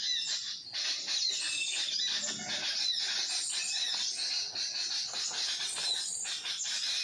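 Small birds chirping and twittering over a dense, steady high-pitched chorus of forest wildlife, with short quick notes throughout.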